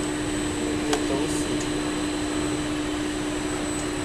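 EVA foam trim-making machine running with a steady motor hum and a constant low tone, and a single click about a second in.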